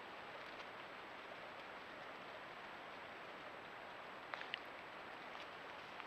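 A canyon stream running, heard as a faint, steady rushing hiss. A few short sharp clicks come about four and a half seconds in.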